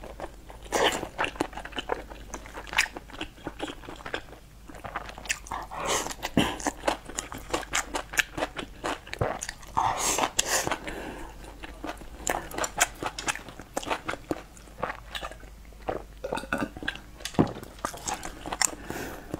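Close-miked chewing and wet mouth sounds of someone eating rice and braised pork belly, with frequent irregular sharp clicks and smacks.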